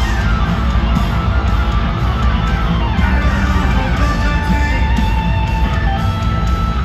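Live rock music from a concert sound system, loud and continuous: electric guitar over a heavy low end, with no vocals.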